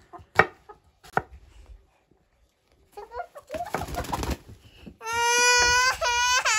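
A cleaver chops quince on a wooden cutting board with a couple of sharp knocks, then a hen flaps its wings hard as it struggles free of a child's arms. Near the end a small girl lets out a loud, long, high-pitched squeal of laughter.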